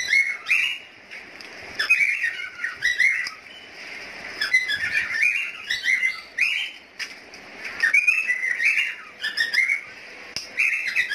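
Birds chirping and whistling in repeated bursts of quick, gliding notes, each burst about a second long with short quieter gaps between.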